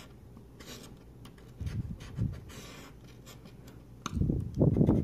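Scratch-off lottery ticket being scratched in short strokes, its coating rasping off the winning-numbers panel. Dull low thuds come twice, the louder ones near the end.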